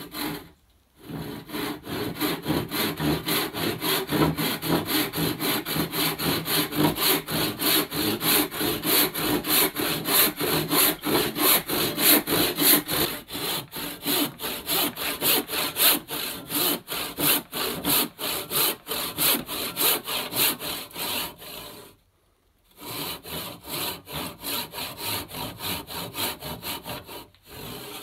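Handsaw cutting through a block of wood: steady back-and-forth sawing strokes, about three a second, with a brief pause near the end before the strokes resume.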